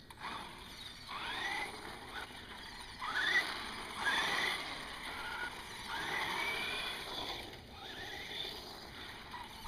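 RC car motor whining up and down in pitch several times as the car speeds up and slows.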